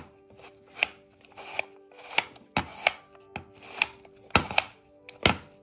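About a dozen irregular plastic clacks and taps from a hand-held pet hair remover roller being handled and turned over.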